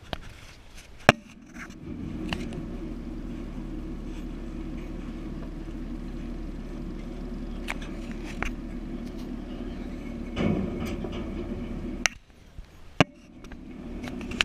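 A motor or engine running steadily with a low hum. It drops out briefly near the end and comes back. A few sharp clicks and knocks sound over it.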